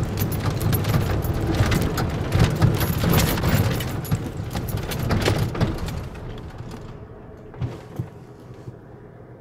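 Cab noise of a 1991 Ford F-150 pickup driving on a bumpy gravel road: steady road and engine noise with many quick rattles and clicks from the cab. It gets quieter about six seconds in, and two short knocks follow near the end.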